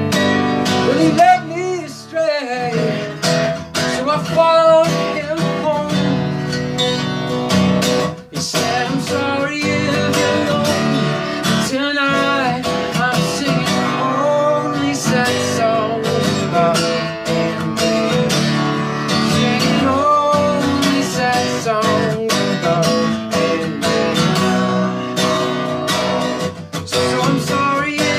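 Acoustic guitar strummed steadily, with a man's voice singing over it at times.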